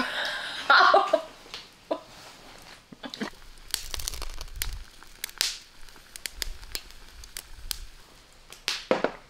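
A woman laughs briefly at the start. Then oysters in their shells cooking on a wire grill over charcoal crackle and pop, with many sharp, irregular clicks over a faint low rumble.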